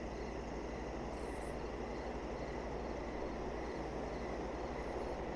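Steady faint background noise with a low hum: room tone, with no distinct sound event.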